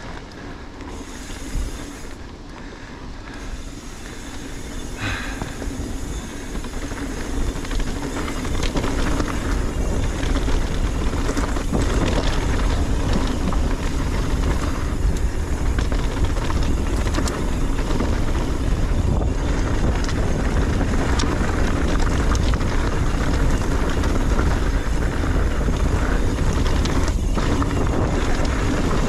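Mountain bike rolling fast down a dirt singletrack: wind rushing over the GoPro's microphone, with tyre noise on the dirt and scattered clicks and rattles from the bike. It grows louder over the first eight seconds or so, then holds steady.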